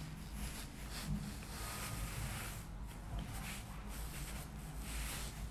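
Faint rustling and handling noise, with a few soft knocks, as the phone is moved about.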